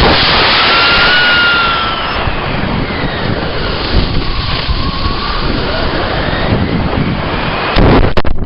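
Model rocket motor burning with a loud, steady hiss, heard from a camera riding on the rocket; it cuts off about two seconds in. After that, air rushes past the camera with faint gliding whistles as the rocket coasts, and a short louder burst with sharp clicks comes near the end.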